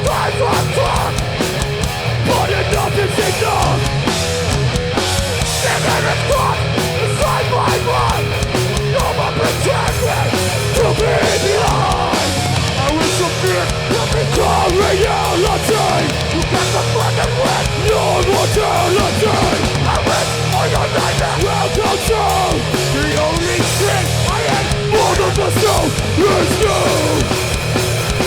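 Hardcore punk band playing live at full volume: distorted electric guitars, bass and drums.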